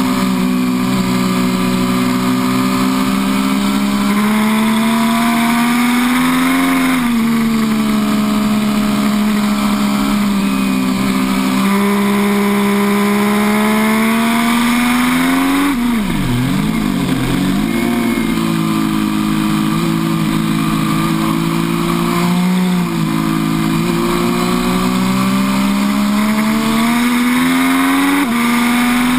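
MV Agusta F3 800's three-cylinder engine at high revs, heard from onboard with wind rush over it. The engine note climbs and then drops suddenly several times, dipping low and wavering about sixteen seconds in before climbing again.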